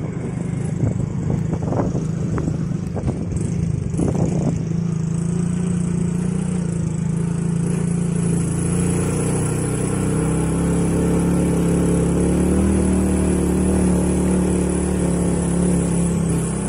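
Small motor scooter engine running steadily under load as it carries its riders up a steep, rough path, with a few knocks in the first few seconds.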